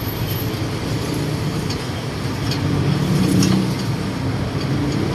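Engine and road noise of a songthaew, a pickup truck fitted out as a shared taxi, heard from its open rear bench while it drives. The engine note swells and grows louder about three seconds in.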